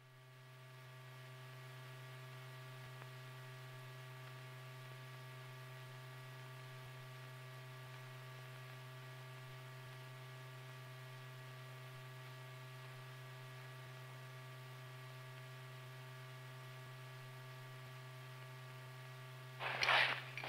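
Steady low electrical hum with a ladder of fainter overtones, fading in at the start and then holding unchanged. About a second before the end, loud noisy scrapes or knocks cut in over it.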